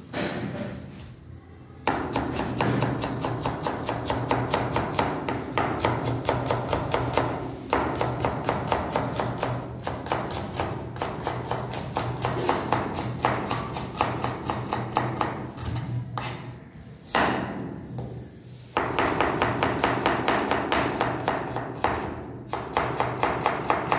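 Kitchen knife chopping fast on a cutting board: a long run of even strokes, several a second, stopping for about two seconds past the middle and then starting again.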